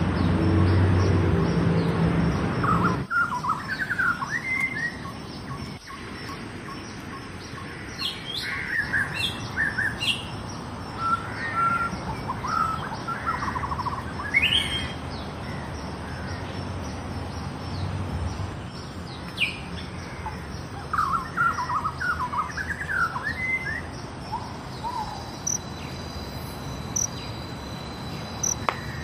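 Wild birds chirping and calling on and off, short quick chirps and trills throughout. For the first three seconds a low steady drone sits underneath and cuts off abruptly.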